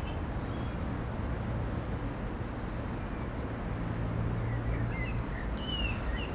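Steady outdoor background noise with a low hum running under it, and a few short bird chirps, mostly in the second half.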